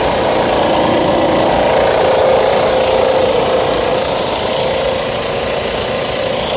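Refrigerant recovery machine running steadily, its compressor pulling the refrigerant charge out of the system, with a steady hum and hiss.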